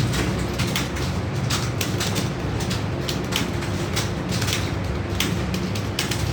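Several computer keyboards clattering at once, keys struck rapidly and irregularly by people typing a timed test, over a steady low hum.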